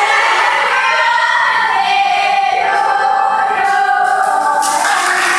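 A group of young women singing a birthday song together. Hand clapping joins in near the end.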